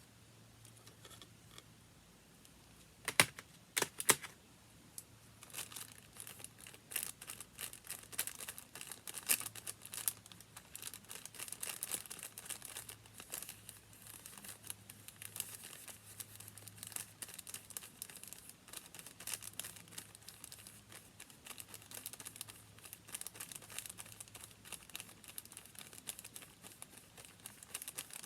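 Paper being handled and rustled, a dense crackly crinkling, with a few sharp clicks about three to four seconds in.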